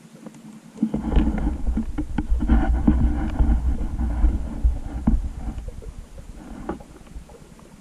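Muffled underwater rumble with scattered crackles and knocks, heard through the GoPro's waterproof housing; it swells about a second in and fades away after about five seconds.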